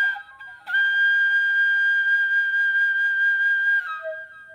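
Background music on a flute: a few short notes, then one long held note, then a short run of lower notes stepping down near the end.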